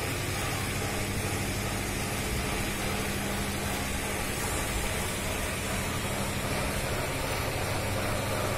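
Steady outdoor background noise: a constant hiss over a low, unchanging hum.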